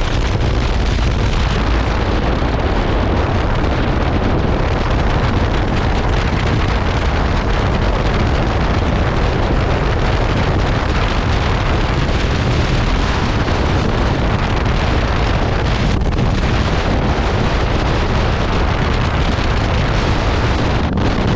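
Heavy wind rush on the microphone while riding a KTM 390 Adventure, its single-cylinder engine running underneath. The noise is steady and loud throughout.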